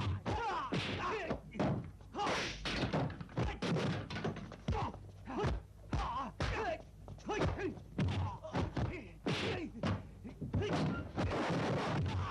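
Martial-arts film fight soundtrack: a rapid, irregular string of punch and strike impact sound effects, with fighters' shouts and grunts between the hits.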